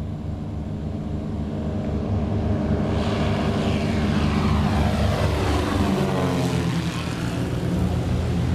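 Propeller airplane's engines at takeoff power as it goes past: the engine and propeller sound grows to its loudest about halfway through, then drops in pitch as the plane passes and moves away.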